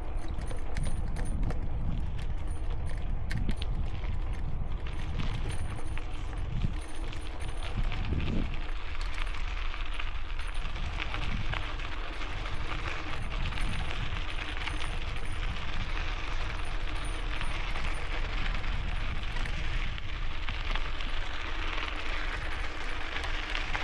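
Strong wind buffeting a helmet-mounted camera microphone: a steady rushing noise with a heavy low rumble, plus a few short clicks in the first few seconds.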